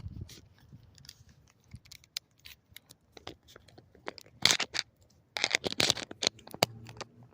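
Hand tools and parts being handled at the engine: scattered light clicks, with two louder bursts of scraping and rustling about four and a half and five and a half seconds in.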